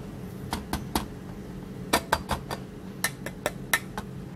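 A plastic Aeropress chamber knocking and clinking against glass as it is handled: about a dozen sharp taps in uneven groups, with the loudest about two and three and a half seconds in.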